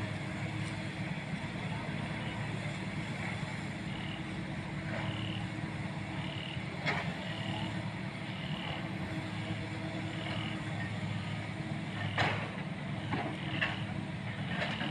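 Heavy construction machinery running with a steady low engine hum. From about four seconds in, a reversing alarm beeps about once a second. A few sharp knocks and clanks come through, the loudest late on.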